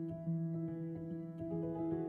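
Background music: single notes starting one after another and ringing on over held tones.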